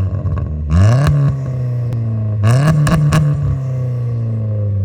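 Turbocharged Audi A4 1.8T four-cylinder with a big Garrett GT2860RS turbo, revved in short throttle blips: the pitch rises sharply and falls back about three times, with a few sharp cracks as the revs drop.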